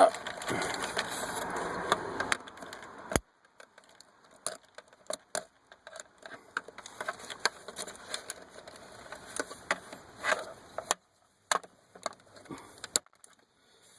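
Scattered small plastic clicks and ticks of wiring-harness connectors being unlatched, their red locking tabs pulled up and release tabs pressed. A steady hiss runs under the first two seconds and then cuts off.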